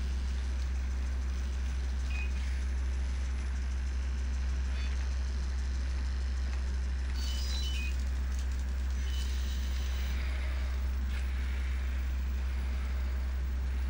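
Self-balancing robot's motors running with a steady low hum, with a few brief high-pitched whines from its arm servos as the arm reaches and grips, about two seconds in and again around seven to eight seconds.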